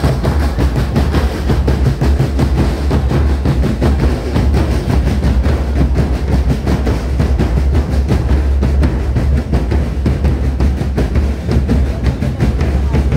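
Street drum band of many large bass drums and snare drums beating a fast, loud, unbroken rhythm.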